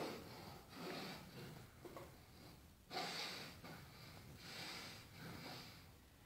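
A person breathing hard and audibly, in soft noisy breaths about one a second, with a sharper, louder breath about three seconds in.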